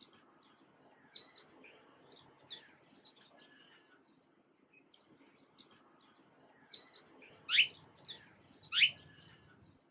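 Small birds chirping: scattered short, high chirps, then two loud, quick rising calls near the end.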